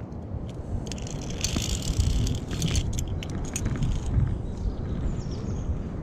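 Steel carabiners on a climbing-harness safety lanyard clinking and scraping against the steel safety cable, with a cluster of jingling clicks between about one and a half and three seconds in. Low wind rumble on the microphone runs underneath.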